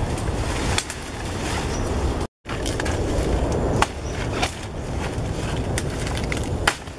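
Long knife hacking into a fleshy banana trunk: several sharp, irregularly spaced chops over a steady low rumble, with a brief dropout a little over two seconds in.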